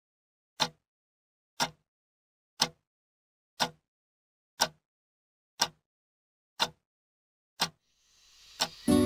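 Clock ticking once a second, sharp single ticks with silence between. Near the end a rising swell of hiss builds under the last ticks, and music starts right at the end.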